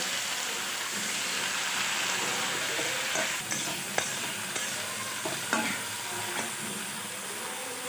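Flat beans and potatoes sizzling steadily in a kadai of hot mustard oil and spices just after a little water has been added, with a few sharp clicks of a spatula against the pan between about three and six seconds in.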